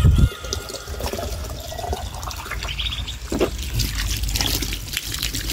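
Water running from a garden hose into a small container, a steady trickle and splash. A brief low thump comes right at the start.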